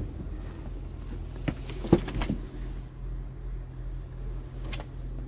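Scania R truck's diesel engine idling with a steady low hum, heard inside the cab. A few knocks and clicks from handling in the cab come about one and a half to two and a half seconds in, the loudest near two seconds, and one more near the end.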